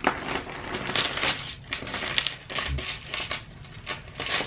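Metal necklace chains clinking and rattling against each other as they are handled, a run of quick light clinks.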